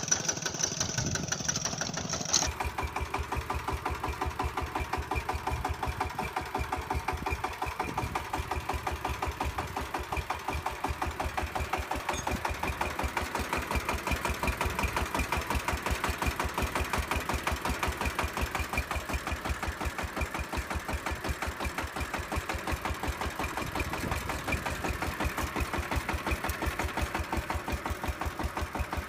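A small engine on a miniature remote-controlled well-drilling rig running steadily at an even speed, with a regular beat of firing pulses.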